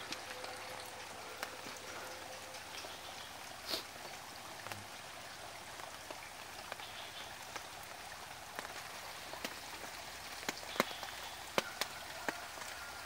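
Quiet outdoor ambience: a steady hiss with scattered faint ticks and clicks.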